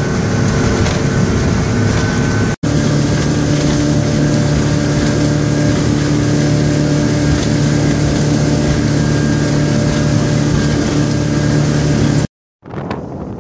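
Four Winns 268 motor cruiser running at speed: a steady engine drone over rushing water and wind. The sound drops out for a moment about two and a half seconds in and cuts off shortly before the end.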